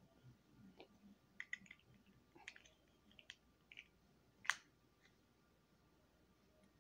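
Faint, scattered clicks and light handling of small plastic toy pieces, with one sharper click about four and a half seconds in.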